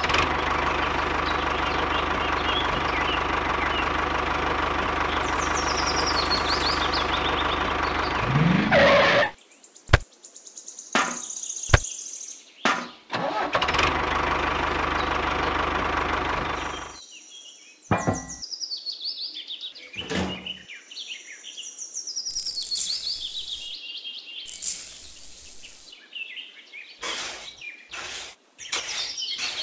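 Small electric motor of a homemade mini toy tractor running with a steady whine. It stops about nine seconds in and runs again for a few seconds later. After that come light clicks and taps and scattered bird chirps.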